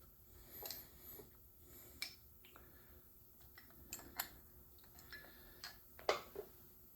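Faint, scattered clicks and taps of small brass air-brake-valve parts being handled on a workbench, the loudest a knock about six seconds in.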